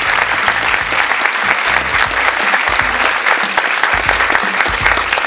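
Audience applauding, dense clapping from many hands, with the bass of music pulsing underneath.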